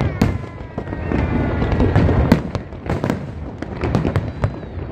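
Large aerial fireworks display: a dense run of bangs and crackles from shells bursting overhead, over a constant low rumble. A drawn-out tone slides slowly down in pitch through the first half.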